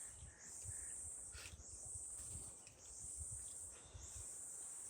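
Insects buzzing in a steady rhythm: a high, shrill call about a second long, repeated after short breaks, about four or five times.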